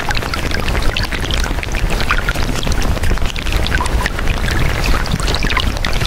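Subliminal affirmation audio, layered and sped up about fifty times, heard as a dense, steady wash of short chirps and garbled blips over a low rumble.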